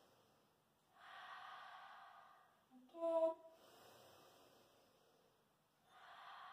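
A woman breathing slowly and audibly while holding a forward-fold stretch. There is a breath about a second in and another near the end, with a brief voiced sound, like a short sigh, about three seconds in.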